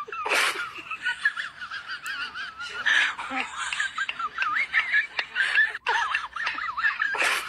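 Baby monkey making a run of high-pitched, wavering squeaks and chirps, one after another, with a few knocks of handling; a sharp knock near the end.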